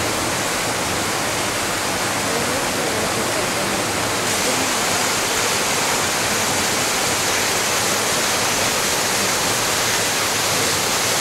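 Waterfall pouring through a narrow rock gorge: a steady rush of falling water, a little brighter from about four seconds in.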